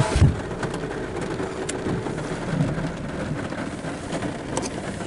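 Heavy rain falling on a vehicle's closed side window and body, heard from inside the cab as a steady hiss with small scattered ticks. There is a short low thump about a quarter second in.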